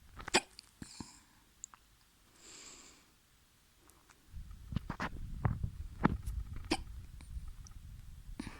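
A person hiccupping several times, each hiccup a sharp, short catch, with a soft breath between them. A low rumbling noise starts about halfway through and runs under the later hiccups.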